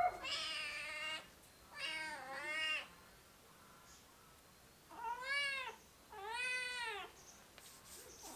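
A kitten meowing four times, each call about a second long and rising then falling in pitch, with short pauses between them.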